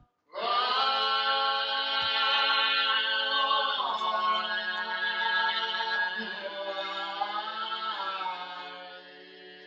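Unaccompanied male voices singing traditional Sicilian song in close harmony, holding long notes over a steady low note. The melody steps down about four seconds in and again about eight seconds in, and the singing fades near the end.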